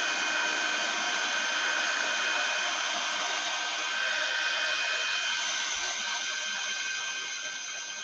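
Handheld craft heat tool (embossing heat gun) running steadily, its fan blowing with a steady whine, drying wet Distress Oxide ink on a card. It gets a little quieter near the end.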